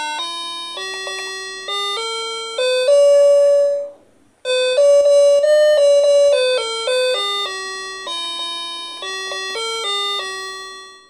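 A 37-key toy electronic keyboard (Music Fairy MQ-3700) played by hand: a simple melody of electronic notes through its small built-in speaker, with a short break about four seconds in and fading away near the end.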